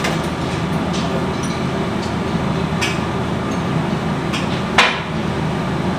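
Scattered metallic clinks and taps of hand tools on metal turbocharger parts, about five in all, the loudest near the end, over a steady workshop hum.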